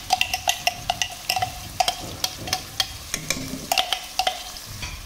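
A spoon stirring chopped onions and green chillies in a metal kadai: quick, irregular clinks and scrapes against the pan, each with a brief metallic ring, over the sizzle of the vegetables frying in hot mustard oil. The clinks stop in the last second.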